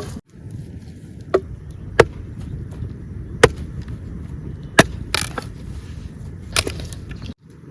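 Firewood being chopped: five or six sharp chops, roughly one every second and a half.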